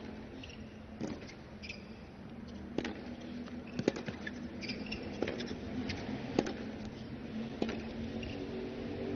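Tennis rally on a hard court: the ball is struck by racquets and bounces in sharp pops about every second, with short rubber-soled shoe squeaks in between.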